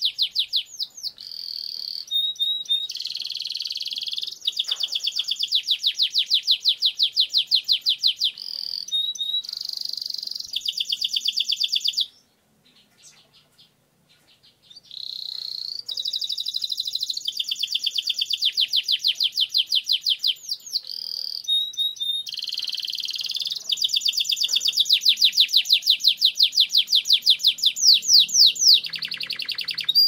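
Domestic canary singing a long rolling song: runs of rapidly repeated high notes, one trill after another. The song breaks off for about three seconds halfway through, then resumes.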